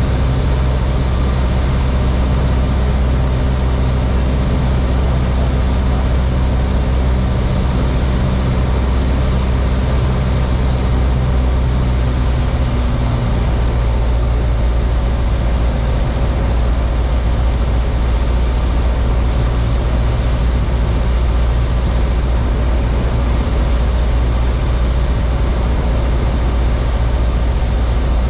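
Piper Warrior's four-cylinder Lycoming engine and propeller droning steadily, heard inside the cockpit. About halfway through the engine note changes, some of its upper tones dropping away.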